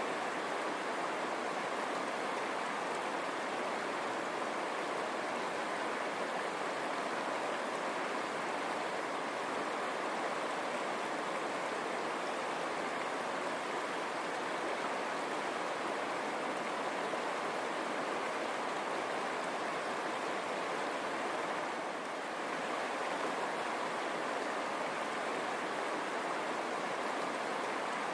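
River water running over stones: a steady, even rushing.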